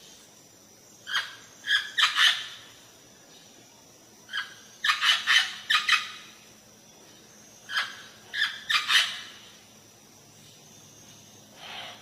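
A bird giving short, harsh, squawking calls in clusters of two to four, separated by pauses of a second or two, with a fainter call near the end.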